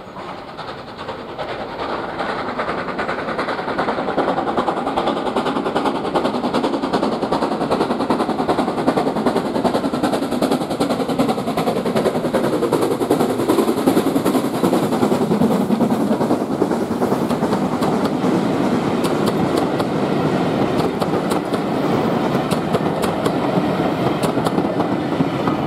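WD Austerity 2-8-0 steam locomotive 90733 approaching with its train, growing louder over the first few seconds, then passing close by. The coaches follow with their wheels clicking over the rail joints near the end.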